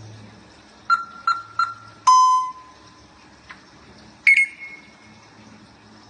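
African grey parrot whistling electronic-style beeps: three quick short notes about a second in, then a long loud beep, and a shorter, higher beep a couple of seconds later.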